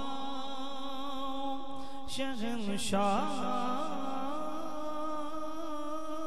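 A man's solo voice singing a naat in a long, drawn-out melismatic line into a microphone: one long wavering held note, a brief break about two to three seconds in, then another long held note.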